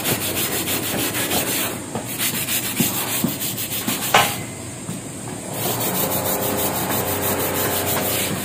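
Stiff hand brush scrubbing back and forth over textured stone-look floor tiles to lift dried paint drips: a fast, steady scratching of strokes, easing off briefly about two seconds in and again around five seconds in, with one sharp click near the middle.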